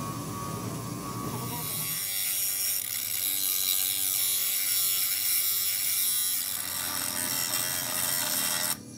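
Electric grinder running, then grinding a threaded steel hydraulic-jack part pressed against its wheel, with a louder, bright hiss from about two seconds in that cuts off suddenly near the end.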